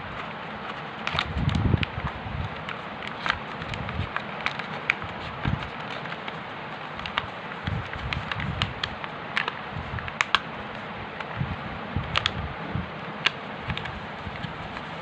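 A sheet of A4 paper handled and folded into a boat: irregular crinkles and sharp crackles as it is creased and pulled open, with a few low thumps, over a steady background hiss.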